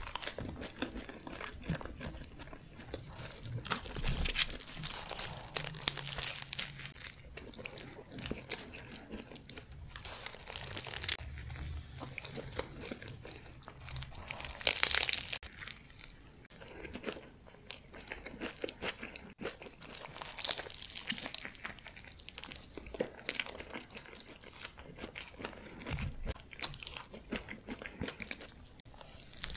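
Close-miked eating of a pita gyro wrap and fries: bites and chewing with irregular crackles and mouth sounds, the loudest bite about fifteen seconds in.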